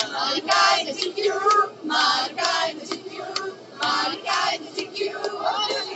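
A group of young people singing and shouting together in short, loud, high-pitched phrases with brief gaps between them.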